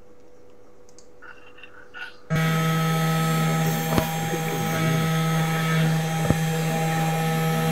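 SainSmart 3018 desktop CNC mill's spindle motor running steadily with a strong low hum and a whine above it while it drills holes in a copper-clad circuit board, starting suddenly about two seconds in. Two sharp ticks cut through it in the middle.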